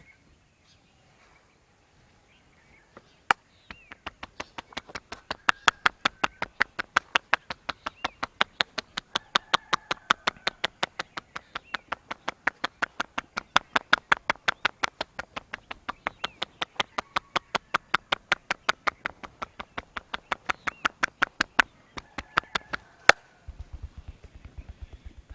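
Rapid, rhythmic hand slaps of a barber's head massage, about five a second, starting about three seconds in and running until near the end. A single loud smack comes just before they stop.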